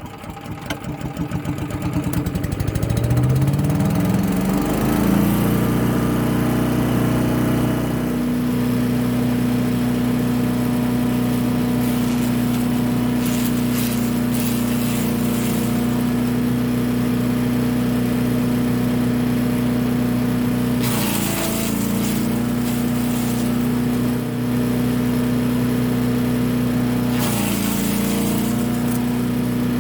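Small single-cylinder petrol engine starting up and rising to a steady running speed over the first few seconds, then running steadily, its pitch briefly sagging twice under load about two-thirds of the way in and near the end.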